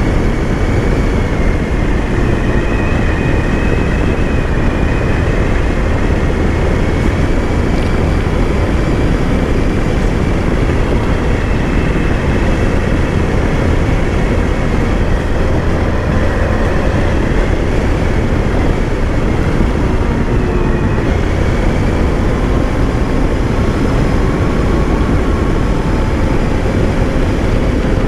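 Motorcycle riding at a steady cruising speed: the engine running evenly under a constant rush of wind noise.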